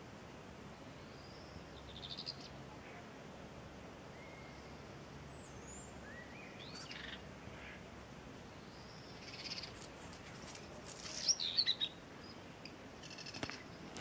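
Starlings calling: scattered whistles and chirps, several sliding up or down in pitch, with the loudest cluster of calls about eleven seconds in.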